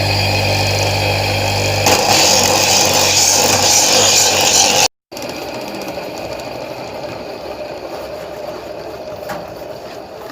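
Electric coconut-grating machine running with a steady motor hum; about two seconds in a louder rasping noise joins as coconut is grated. About five seconds in the sound breaks off abruptly and a quieter, steady machine noise continues.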